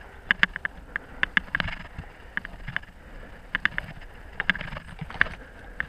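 Footsteps and brush crackling as a person moves through dry grass and undergrowth: irregular sharp clicks and crunches, several a second, over a low rumble of movement.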